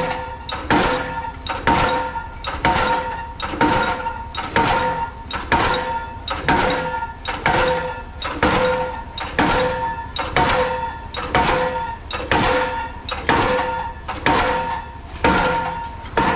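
Pile driver hammer striking a pile over and over, a sharp ringing metallic blow a little more than once a second, stopping near the end.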